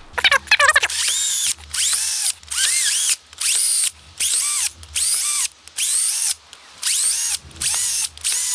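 Cordless drill boring a row of shallow holes into a soft block wall, run in short bursts of under a second, roughly one a second, its motor whine rising and falling with each hole. This is chain drilling around the outline of a back-box hole so the block can be chiselled out.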